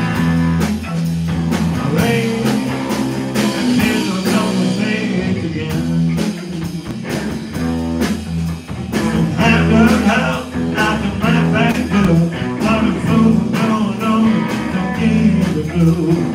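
Live rock band playing: electric guitar, electric bass and a drum kit, with steady bass notes under regular drum strokes.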